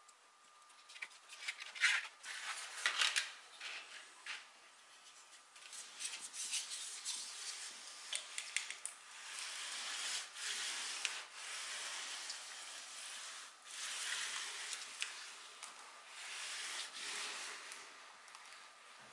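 Thin wood veneer strips crackling as they are handled, then a clothes iron pushed back and forth over a veneer strip, rubbing in repeated strokes, to melt the dried PVA glue beneath it.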